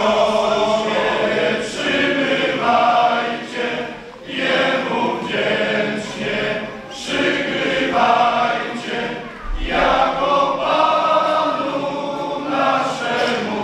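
Men's choir singing a Polish Christmas carol (kolęda), sung in phrases with short breaks between them.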